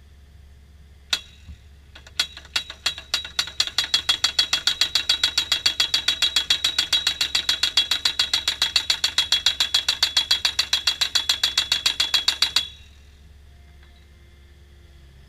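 Excavator-mounted hydraulic post thumper hammering a steel fence post into the ground: a single blow, then a run of rapid blows that quickens to about seven a second, with a steady high metallic ring, stopping abruptly.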